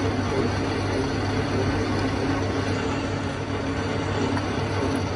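Workshop metalworking machine running with a steady hum over even machining noise.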